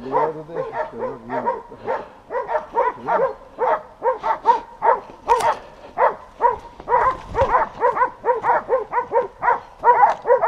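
Hunting dogs barking without a break, about three or four barks a second, baying a wild boar.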